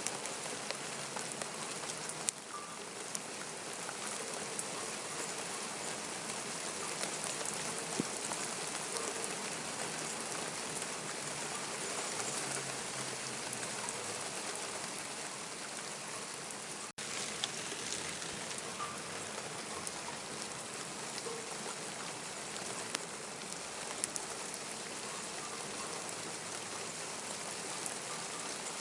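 Steady rain falling, with scattered sharp drip clicks of raindrops striking nearby surfaces. The sound cuts out for an instant about two-thirds of the way through.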